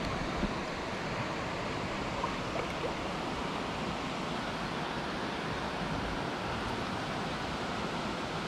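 Steady rush of flowing river water, an even noise that holds unchanged throughout.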